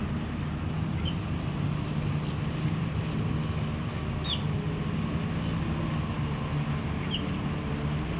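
Volvo Penta 5.7 GL V8 marine inboard engine idling steadily, just after being started.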